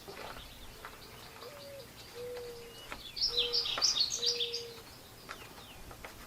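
Birds calling: a dove cooing in four low, steady notes while small songbirds chirp high above it, most busily around the middle.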